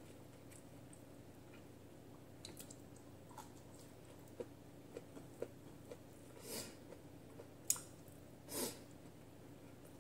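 A person eating with her fingers from a plate: quiet chewing and mouth smacks with a few soft clicks, and two slightly longer, louder squishy sounds about two-thirds of the way through and near the end.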